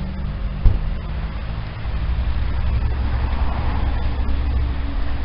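Low, steady rumble of a car running, with a single knock about 0.7 s in.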